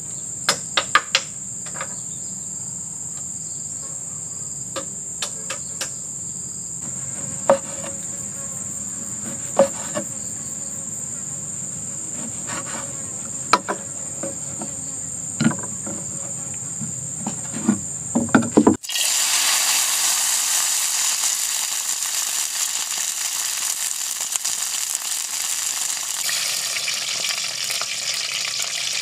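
Irregular knife knocks on a wooden cutting board over a steady high insect drone. About two-thirds of the way through the sound cuts to loud, steady sizzling of food frying in hot oil in a wok.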